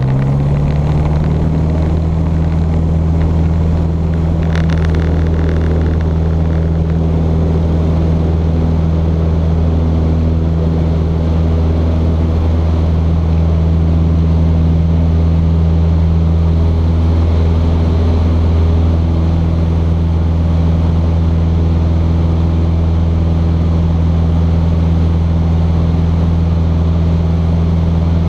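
Cessna 150's Continental O-200 four-cylinder engine at full takeoff power, a loud, steady drone heard from inside the small cabin through the takeoff roll and lift-off.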